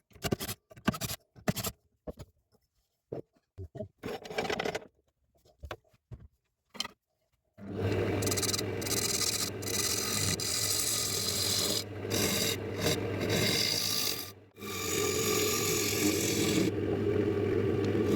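Short, separate scraping and handling sounds with gaps between them. Then, about seven and a half seconds in, a power tool starts and runs steadily, a motor hum under a rough rasping as walnut is worked against it. It dips briefly near the end and then carries on.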